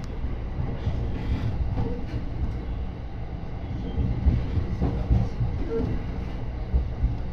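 Yokosuka Line commuter train running, heard from inside the carriage: a steady low rumble of wheels on rails with a few short knocks.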